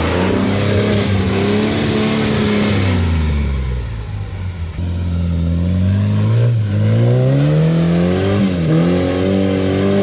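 Rock crawler's engine revving under heavy throttle while climbing a rock obstacle: the revs hold, fall off about three seconds in, climb again, dip briefly near the end and pick back up.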